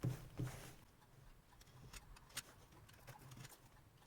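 Faint, scattered clicks and light knocks of a product box and its plastic wrapping being handled as it is opened.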